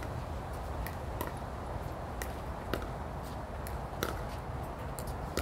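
Pickleball paddles and ball knocking back and forth in a soft dinking rally: a string of sharp pops at an uneven pace, about one every half second to second, over a steady low rumble.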